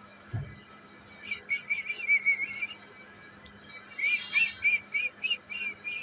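Short, high whistled chirps in quick runs of about four a second, two runs in all. A single low thump comes about half a second in.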